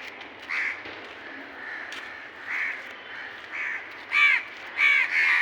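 Crows cawing repeatedly: a series of short harsh caws, growing louder toward the end.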